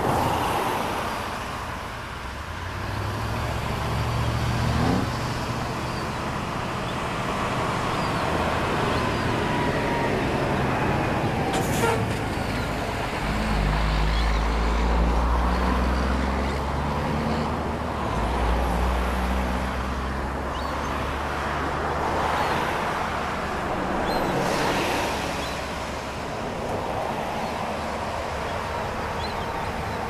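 Steady city traffic noise, with the low engine hum of heavy vehicles swelling and fading, loudest around the middle, and a brief hiss about twelve seconds in.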